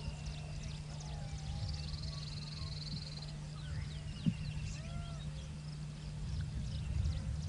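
Forest birds calling: short chirps and arched whistled notes, with a rapid high trill about two seconds in and a lower trill about five seconds in, over a steady low hum. A single sharp knock about four seconds in.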